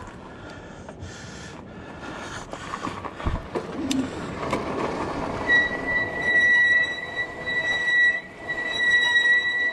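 Brakes on a Cyrusher Ranger fat-tyre e-bike squealing, a loud steady high-pitched squeal setting in about halfway through and breaking off briefly near the end, over the rolling noise of the fat tyres on a gravel path. The brakes have squealed since a forest ride, and the rider reckons they need a good clean.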